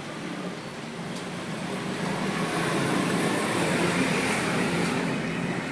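Steady road-traffic rumble with a rushing noise that swells from about two seconds in and fades again near the end, like a vehicle passing.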